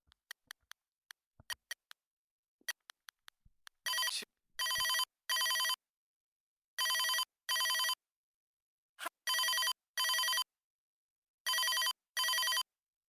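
Chicco Globetrotter toy telephone's electronic ring sounding in double rings, two short beeping tones per ring, about four rings. Before it rings there is a run of faint clicks.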